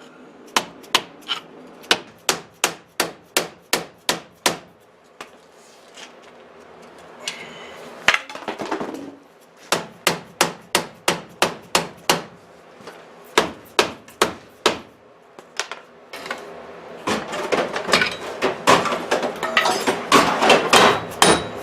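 Repeated hammer blows on a stuck front wheel hub assembly, being driven out of the steering knuckle while a pry bar levers it. The blows come in runs of about two a second, with scraping between the runs. Near the end they turn into a faster, denser clatter.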